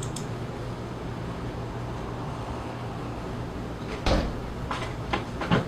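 Attic door banging about four seconds in, followed by three lighter knocks as it rattles, over a steady low hum.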